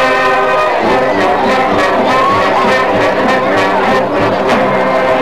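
Marching band playing: brass, sousaphones and trumpets among them, holds a sustained chord, then about a second in moves into a livelier passage over drum strokes.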